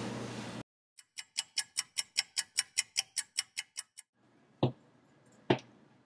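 Clock ticking fast and evenly, about five ticks a second for about three seconds, then two single sharp clicks. A steady background hum cuts off suddenly just before the ticking starts.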